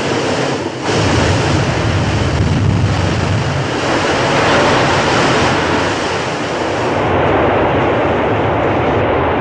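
Loud rush of water flooding into a sinking ship's passageway. It starts suddenly and holds steady as a dense rushing noise.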